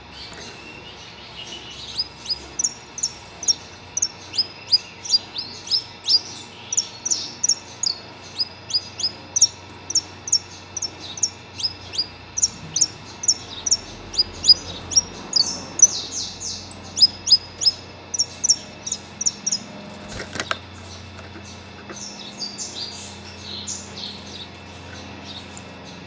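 Saffron finch singing a long run of sharp, high chirps, about two a second. The run breaks off about twenty seconds in with a single knock, and softer, scattered notes follow.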